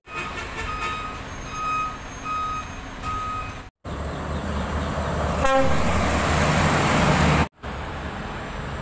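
Heavy trucks hauling excavators on lowbed trailers: first four short, evenly spaced high beeps over engine noise, then a diesel truck's engine rumble and road noise swelling loud as it passes close, then steadier engine noise. The sound breaks off sharply twice where the clips change.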